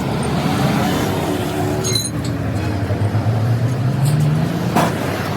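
A vehicle engine running, its pitch rising and falling a little, with a couple of sharp clicks.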